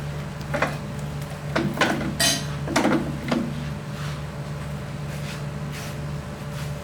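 Metal parts and tools clinking and knocking in a handful of short, irregular strikes, the busiest stretch a couple of seconds in, over a steady low machine hum.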